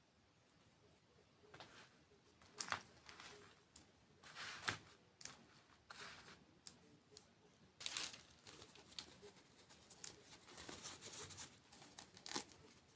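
Quiet, irregular crisp crackling and crinkling: a run of sharp crackles and rustles, the loudest about a third of the way in, near the middle and near the end.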